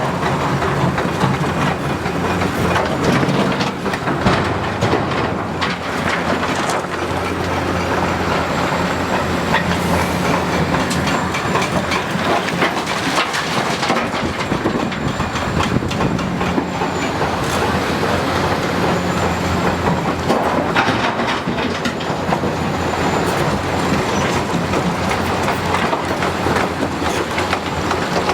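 Hitachi 330 excavator's diesel engine running steadily, its drone shifting pitch a few times, under a continuous clatter and knocking of rock and steel as the machine digs and loads stone.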